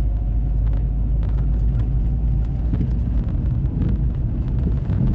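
Steady low rumble of a car's engine and tyres heard from inside the cabin while driving along a road.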